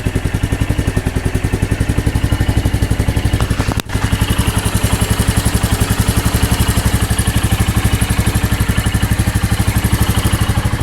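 Royal Enfield Meteor 350's single-cylinder J-series engine idling steadily with an even, rhythmic exhaust beat, with a very brief break about four seconds in. It is running on freshly changed Motul 5100 15W-50 oil, which the owner says has noticeably reduced the tappet noise.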